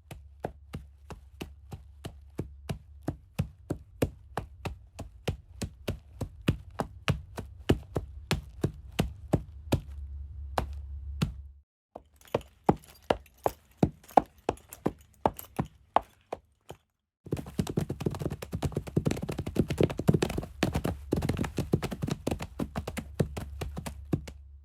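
Horse hoofbeat sound effect: sharp clip-clop knocks in an even walking rhythm. They come in three runs, broken by short pauses about 12 and 17 seconds in, and the last run is busier, with the knocks closer together.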